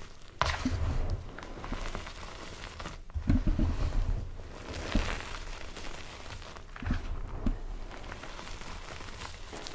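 Hands squeezing and crumbling handfuls of dyed gym chalk in a bowl: crunching and powdery rustling as clumps break and powder falls. The crunching comes in bursts, about half a second in, around three to four seconds in, at five seconds and around seven seconds in.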